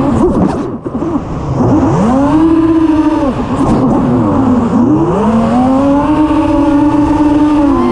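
Eachine Wizard FPV racing quadcopter's brushless motors and propellers whining. The pitch drops and climbs back three times as the throttle is cut and pushed again, then holds a steady whine over the last couple of seconds.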